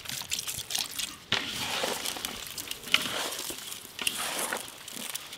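Vinegar splashing onto masala-coated tuna chunks in a large aluminium pot, then wet, crackly squelching from about a second in as the pieces are mixed by hand.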